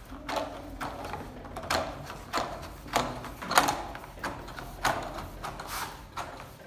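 A plastic divider (septum) being pressed into the clips of a Legrand DLP-S 80×50 PVC cable trunking, clicking into place about every two-thirds of a second as the hands work along its length. The loudest snap comes about three and a half seconds in.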